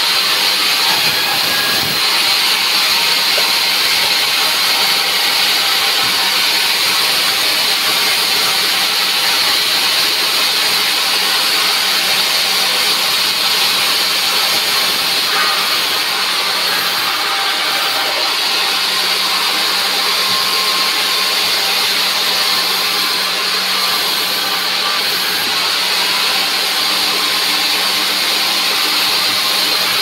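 Large vertical sawmill band saw running and cutting dry timber as logs are pushed through the blade: a loud, steady hiss of sawing over a constant hum.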